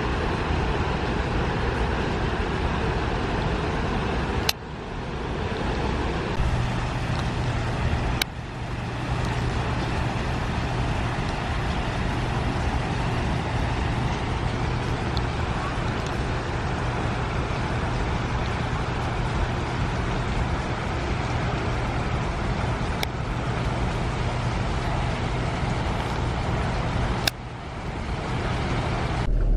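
Steady rushing roar of water released from Wolf Creek Dam, churning out at the foot of the dam, with a low steady hum joining in about six seconds in. The sound breaks off briefly three times.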